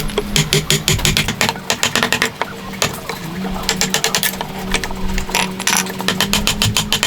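Hand tools working wood: a rapid, irregular series of sharp taps and strokes over a steady low hum, easing off for a moment midway.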